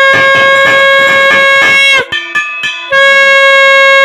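Conch shell (shankha) blown in two long, steady, loud blasts: the first stops about two seconds in, dipping slightly in pitch as it ends, and the second starts about a second later. A hand bell is rung rapidly during the first blast.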